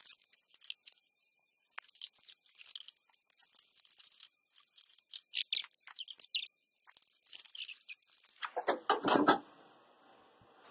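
Light clicks, taps and rattles of small parts being handled during assembly of a lapidary machine, coming and going in short clusters, with a fuller rustling thump about nine seconds in.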